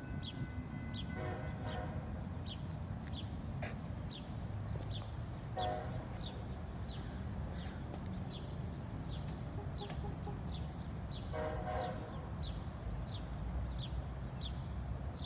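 Steady low rumble under a bird chirping over and over, a short high falling note every half second or so, with three brief buzzy calls about a second, five seconds and eleven seconds in.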